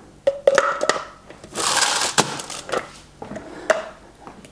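Clicks and knocks from a plastic peanut butter container being handled, with a louder crackling rustle about one and a half seconds in.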